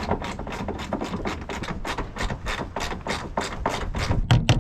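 Hand ratchet wrench clicking in a steady rapid run, about five clicks a second, as the door hinge bolts are run in, with a few louder clicks near the end.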